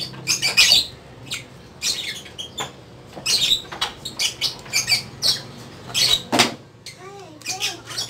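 Plastic louver slats of an Isuzu Crosswind air-con vent clicking, squeaking and scraping as they are worked by hand into the vent housing, in short irregular snaps. Two short chirps come near the end.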